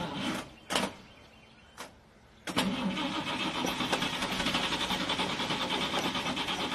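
Car starter motor cranking the engine from about two and a half seconds in, a steady fast churning that does not catch and run. The engine is taken to be flooded, with a strong smell of fuel.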